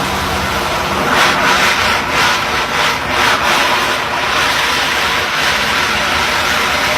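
Drilling-rig floor machinery running with a loud, steady noise. From about one to four seconds in, a run of short rasping bursts comes several times a second.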